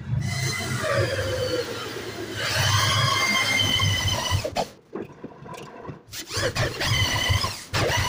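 Electric hand drill boring into the edge of a wooden door with a long bit, for the lock. The motor runs with a high whine that wavers in pitch as the bit cuts. It stops a little after halfway and starts again about a second and a half later.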